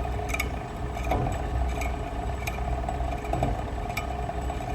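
Showmark UniSpooler wire respooling machine running steadily while winding welding wire onto a spool. It gives a low motor hum and an even whine, with scattered light clicks.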